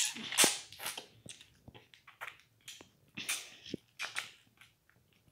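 A child slurping and sucking jelly out of a small plastic jelly cup, in several short wet slurps spread irregularly through the few seconds.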